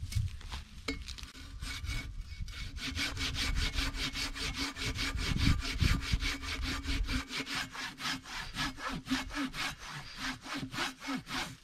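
Hand saw cutting through a peeled log: rasping push-and-pull strokes that settle into a fast, even rhythm of several strokes a second after the first couple of seconds.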